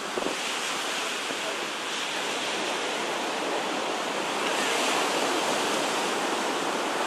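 Small waves breaking and washing up a sandy beach: a steady rush of surf that swells a little louder about two-thirds of the way through.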